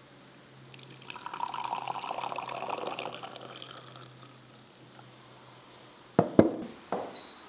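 Tea poured in a thin stream from a glass teapot into a glass tea glass, a splashing pour that swells and then tapers off as the glass fills. About six seconds in come two or three sharp knocks as the glass teapot is set down on the wooden table.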